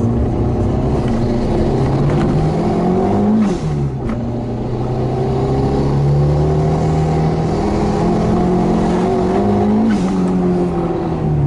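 Turbocharged 1200 engine of a modified Fiat 600 pulling hard under load. Its note rises, drops sharply about three and a half seconds in as a gear changes, then climbs steadily again before dropping once more near the end.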